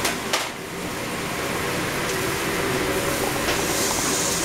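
Steady rushing noise from a commercial kitchen's exhaust hood fan and lit gas char-grill, with a single knock about a third of a second in.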